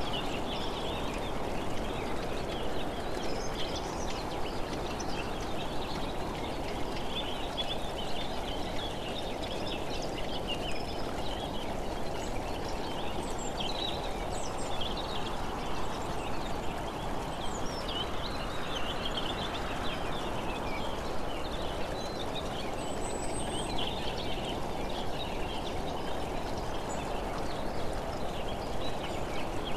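Steady wind and road noise from travelling along the road, with scattered short high chirps above it.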